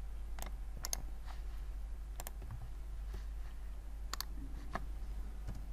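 Computer mouse and keyboard clicks: about half a dozen sharp, scattered clicks, some in quick pairs, over a steady low electrical hum.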